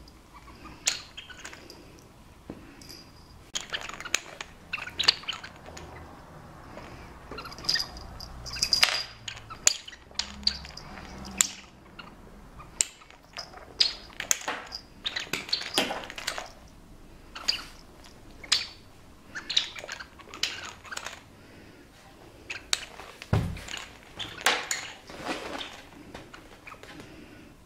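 A cat playing with a toy on a wooden floor: irregular taps, knocks and scrabbles of paws, claws and the toy on the floorboards, with one heavier thump about three-quarters of the way through.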